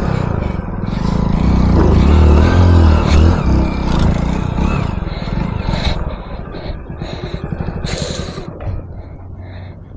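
Hero Splendor motorcycle's single-cylinder engine revving as the bike is worked through mud, loudest about two to three seconds in, then easing off. There is a brief hiss about eight seconds in.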